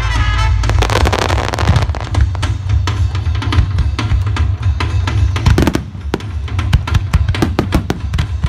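A fireworks display with rapid, dense bangs and crackles over music with a steady bass. A few deeper booms stand out about halfway through and near the end.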